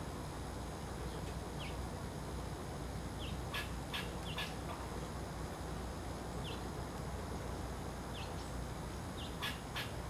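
Small songbirds giving short, high, falling chip notes every second or two over a steady low background rumble, with a few sharp clicks around the middle and near the end.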